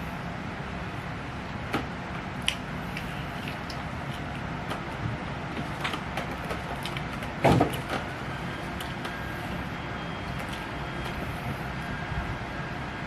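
Steady low background rumble, with scattered small clicks and one louder knock about seven and a half seconds in.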